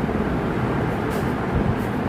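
Steady low rumbling background noise, with two brief soft hisses in the second half.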